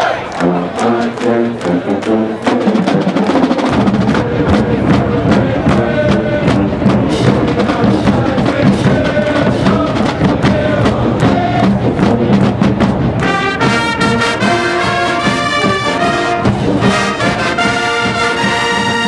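College marching band playing brass with drums. The low brass and drums fill in about four seconds in; about thirteen seconds in the bass drops away and the band holds long, higher brass chords.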